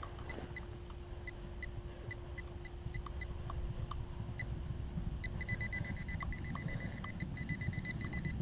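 White's TRX pinpointer probing a dug hole in soil, giving short single beeps at uneven intervals, then breaking into rapid beeping about five seconds in as its tip comes close to a buried metal target. A low rumble of soil and stubble being scraped runs underneath.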